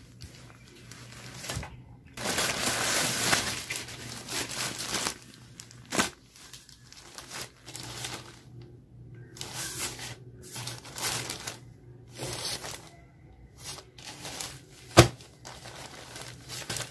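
Plastic packaging bags crinkling and rustling in irregular bursts as they are handled and laid down, with one sharp tap near the end.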